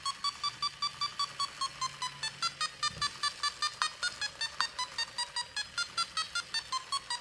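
LEGO Mindstorms EV3 brick's speaker beeping rapidly, about six short tones a second, the pitch shifting slightly up and down. The pitch follows the light level that the robot's light sensor measures from the flashlights at the centre.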